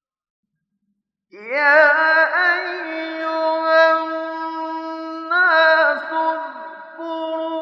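Male Quran reciter's voice in melodic tajweed recitation. It comes in after about a second of silence and draws out long held notes with ornamented turns, shifting pitch about halfway through.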